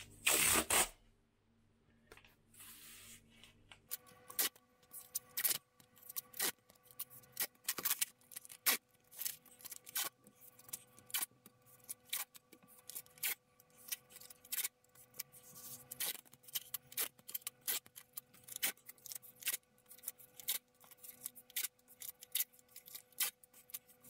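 Paper masking tape being pulled off the roll, torn and pressed down onto floor tiles: a loud rip in the first second, then a long run of sharp, irregular crackling and ripping noises, several a second. A faint steady hum runs under it from about four seconds in.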